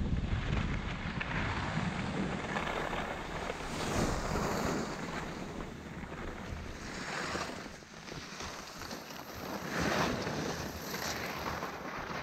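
Skis scraping and hissing over snow, swelling with each turn every few seconds, with wind buffeting the microphone.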